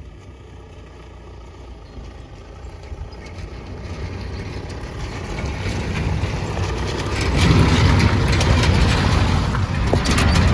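A vehicle driving over rough ground, a steady rumble that grows louder through the second half, with some sharp rattles near the end.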